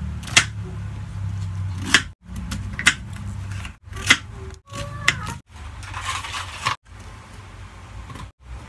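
A kitchen knife slicing through beetroot and knocking on a plastic cutting board: five or six sharp knocks about a second apart over a low steady hum.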